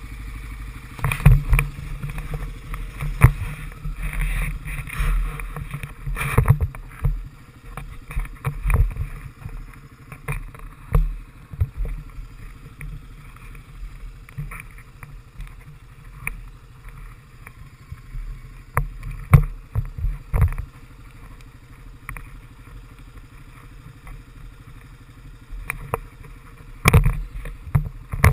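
Honda FourTrax 300 ATV engine idling steadily, with irregular knocks and bumps close to the microphone from the camera mount being handled, a loud cluster near the end.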